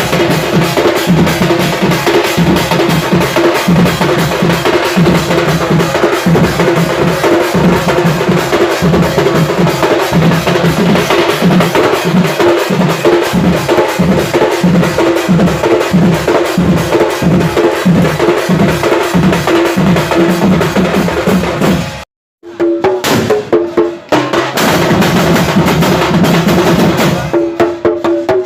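Odisha dhol drum rig of several tuned drums beaten with sticks in a fast, dense, driving rhythm. The playing cuts off abruptly for an instant about three quarters of the way through, comes back lighter and broken, then returns to full strength near the end.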